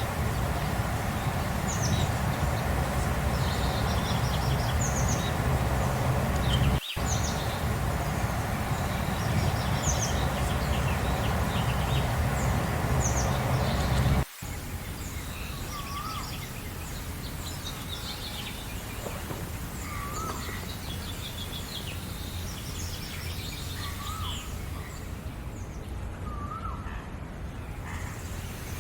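Several wild birds chirping and singing, with many short high chirps. A loud low rumbling noise underlies the first half and cuts off abruptly about halfway. After that, a short, lower, wavering call repeats every two to three seconds over the quieter background.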